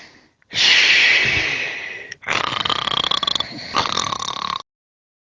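A man snoring: one long rasping snore that fades over about a second and a half, then two shorter snores carrying a whistling tone. The sound cuts off abruptly about four and a half seconds in.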